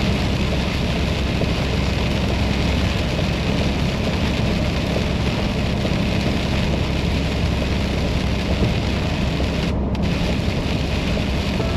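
Heavy rain on a moving truck: a loud, steady hiss of rain and road spray over a low drone of engine and tyres.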